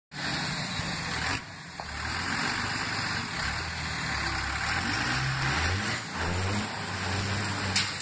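2001 Dodge Ram's 5.9 L Cummins turbo-diesel straight-six working hard under load as the truck pulls against a strapped dumpster, with its rear tyres spinning on gravel. The engine note dips twice and then climbs. There is a sharp crack just before the end.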